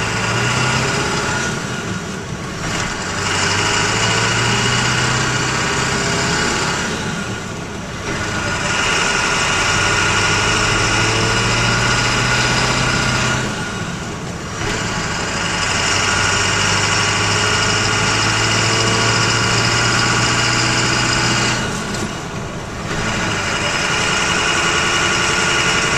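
7.3-litre Powerstroke turbo-diesel V8 of a Ford F-350 running hard through the gears, heard from inside the cab. The engine note dips four times as the throttle is lifted for double-clutched upshifts.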